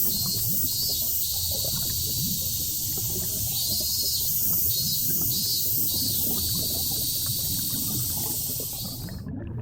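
Cicadas chirring: a steady high-pitched drone with a call that pulses about twice a second for a few seconds, then holds steady, then pulses again; a low crackly rumble runs underneath. The cicada sound cuts off suddenly near the end.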